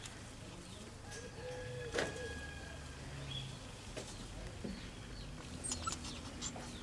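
Faint cooing of a dove, with a few light clicks.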